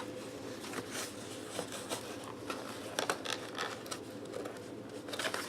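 Light rustling and scattered small clicks and taps of a package being handled and turned over by hand.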